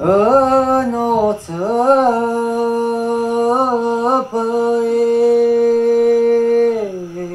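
A single voice singing slowly in long, held notes: three chant-like phrases with small wavers in pitch, each ending in a slide downward.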